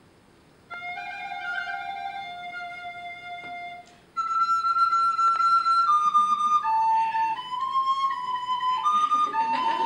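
Music: a slow melody of clear, held notes, quiet at first, then louder and moving from note to note from about four seconds in.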